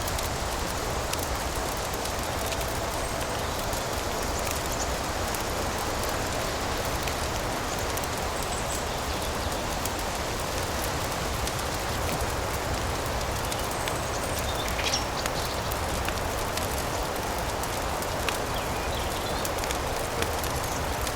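Steady rain ambience with many small, scattered crackles and clicks over it and a steady low rumble underneath.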